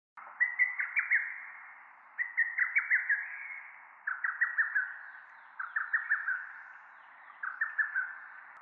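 Birdsong: a bird repeating a short phrase of four or five quick chirps, five times, a phrase about every two seconds.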